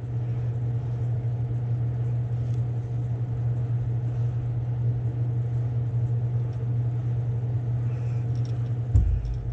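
Steady low hum of a spray booth's exhaust fan running. A short low thump comes near the end.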